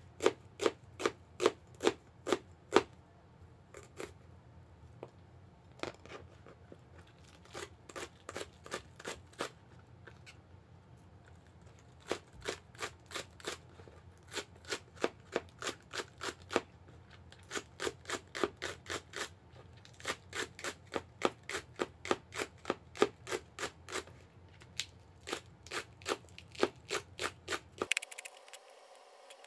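Kitchen knife chopping on a plastic cutting board, first slicing an onion and then cutting green onion into thin rings: runs of sharp knocks at roughly three a second, broken by short pauses. The chopping stops shortly before the end.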